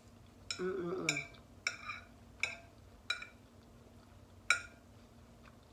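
Metal fork clinking and scraping against a ceramic plate while twirling up spaghetti: about six short ringing clinks, the loudest near the end.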